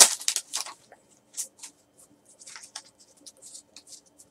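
Foil wrapper of a trading-card pack crinkling as it is torn open, loudest in the first second. Then soft rustles and light ticks as the stack of cardboard cards is slid out and fanned through by hand.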